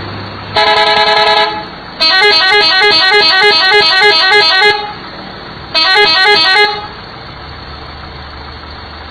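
Three-trumpet telolet air horn playing melodies from its tune module in three bursts: a short phrase, a longer tune of quickly stepping notes lasting about two and a half seconds, then another short phrase. A low steady hum runs between the bursts.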